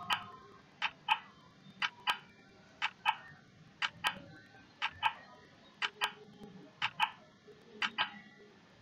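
Countdown timer sound effect of a ticking clock: regular sharp ticks in pairs, a tick and a tock about a quarter second apart, repeating once each second.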